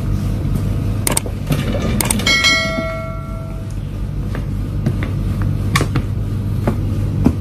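A few soft taps and scuffs of sneakers on a tiled floor over a steady low hum. About two seconds in, a click is followed by a short bell-like ding that rings out for about a second.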